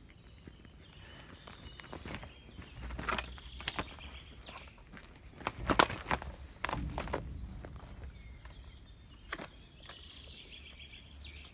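Footsteps on gravel and grass, some landing louder, the loudest about six seconds in. Birds chirp in the background near the start and again near the end.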